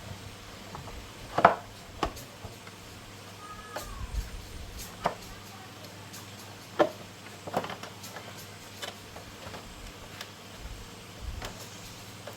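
Scattered sharp knocks and clicks from work on a 110cc motorbike engine, a few seconds apart, over a faint steady hum.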